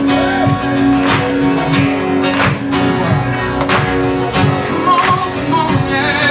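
Live band playing the opening of a gospel song, led by a strummed acoustic guitar.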